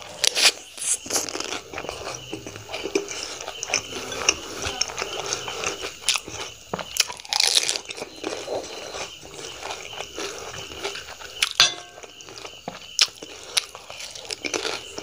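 Crunching and chewing of pani puri, the crisp hollow fried puris cracking as they are bitten whole, in a series of sharp crackles with a louder run of crunching about midway.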